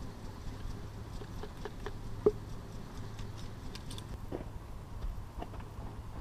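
Faint scattered clicks and taps from a .54 caliber smoothbore muzzle-loading pistol being handled while it is loaded, with one sharper click about two seconds in, over a low steady hum.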